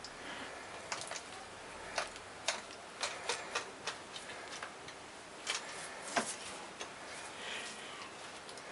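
Irregular sharp clicks and taps, about a dozen and bunched in the middle, from metal feeding tongs as a black-throated monitor lizard snaps a chick from them.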